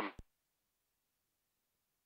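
Near silence: the last syllable of a voice cuts off sharply about a quarter second in, leaving dead digital silence with no engine or background noise.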